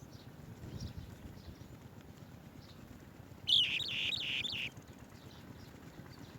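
Swallow-tailed bee-eater calling: a quick run of about five high chirps lasting about a second, a little past the middle, with fainter scattered chirps before it.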